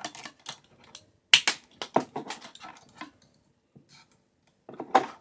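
Leatherman Rebar multitool's wire cutters snipping 2 mm wire: sharp snaps, the loudest about a second in and another near the end, among smaller clicks and rattles of the tool being handled.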